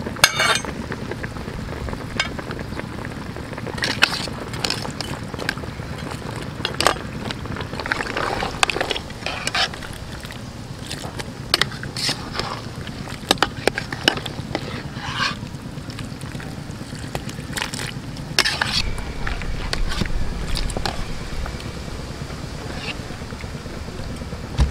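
A metal ladle knocking and scraping against a large aluminium stockpot of braised oxtail stew, with scattered sharp clinks over a steady hiss.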